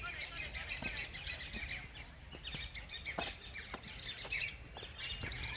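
Small birds chirping, many short high notes repeating throughout, with a few sharp clicks among them.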